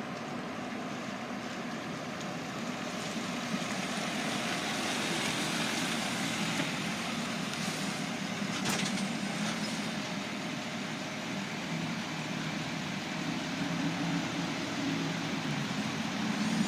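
Fire truck engine running with steady road and traffic noise, getting somewhat louder from about three seconds in; a single sharp click about nine seconds in.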